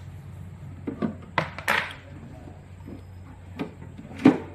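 A hollow white plastic toilet flush tank being handled and turned over: a few light knocks and clatters of plastic, the loudest one near the end, over a faint steady hum.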